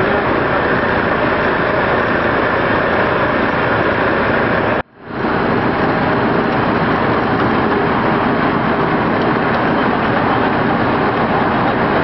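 Steady, loud engine noise from vehicles and machinery running at a roadside crash scene. It cuts out suddenly about five seconds in and fades back up.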